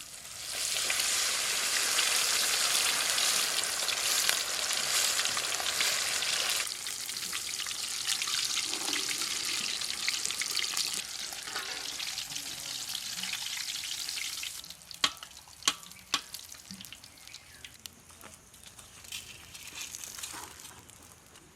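Food sizzling in hot oil in a pan. The sizzle starts suddenly, is loudest for the first seven seconds or so, then carries on quieter. About fifteen seconds in come three sharp knocks.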